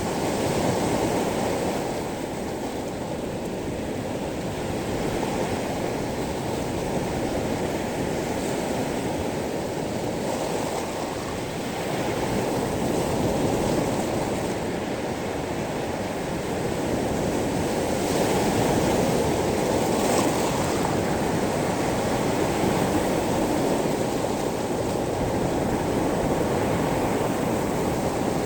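Sea waves washing over a pebble beach: a continuous rushing of surf that swells and eases every several seconds.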